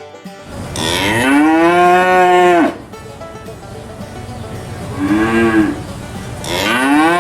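Cattle mooing: a long moo that rises and falls in pitch, then a short, quieter moo, then another long moo beginning near the end.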